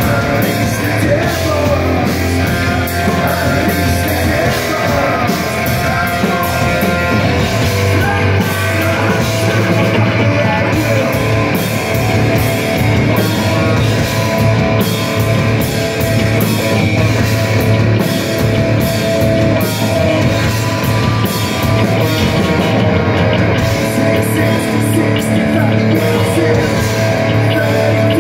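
Loud live hard rock band playing: distorted electric guitar, electric bass and drum kit going without a break.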